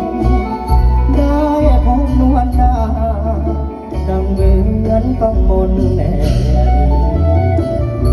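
Isan pong lang ensemble playing live: a melodic line over a steady, heavy drum beat.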